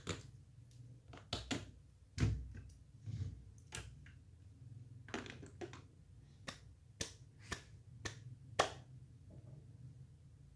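Plastic Lego Duplo figures and pieces being handled and set down on a Duplo baseplate: a dozen or more irregular sharp clicks and taps, the loudest a little over two seconds in and near the end.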